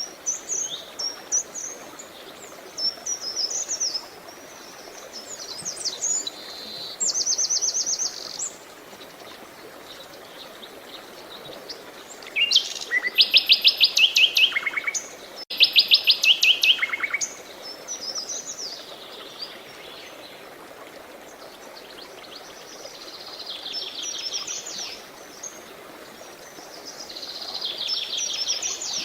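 Songbirds singing in short phrases of chirps and fast trills, the loudest run of trills in the middle, over a steady rush of flowing water.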